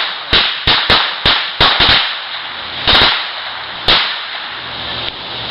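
A string of Black Cat firecrackers going off: about ten sharp bangs at irregular spacing, thick for the first two seconds, then two more spaced about a second apart, fading out near the end. Some of the firecrackers fail to go off.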